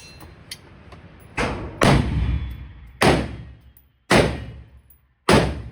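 Five gunshots from an AR-style pistol, slow aimed fire: two about half a second apart, then three more roughly a second apart, each with a short echoing tail.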